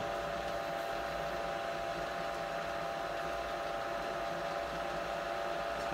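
Floor-standing drill press motor running with a steady, even hum as its bit is lowered into a wooden board.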